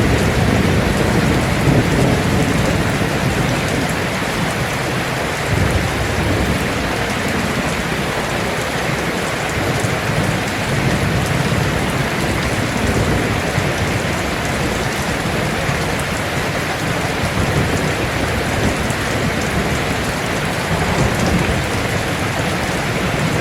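Heavy rain falling steadily on a metal roof, with a rumble of thunder dying away over the first few seconds and fainter low rumbles later on.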